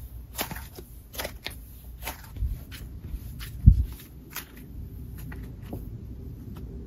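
Hands squishing, stretching and folding a thick, fluffy cloud dough slime, giving a run of soft crackles and small pops. A single dull low thump about three and a half seconds in is the loudest sound.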